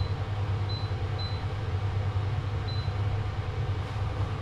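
Steady low hum of a kitchen range hood fan running, with four short high beeps in the first three seconds from the cooktop's touch controls as the heat is turned down.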